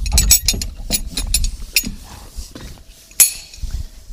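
A metal spoon clinking and rattling against a cup as they are carried, a quick string of clinks and knocks with handling noise, and one sharp knock about three seconds in.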